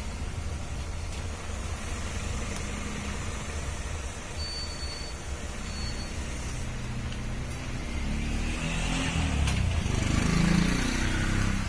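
A motor vehicle engine running steadily as a low rumble, its pitch rising and falling in the last few seconds.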